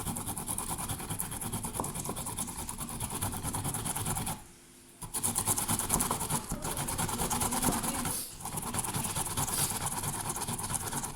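Fresh ginger being grated by hand: a continuous fast rasping of repeated strokes, with a short pause a little past four seconds in.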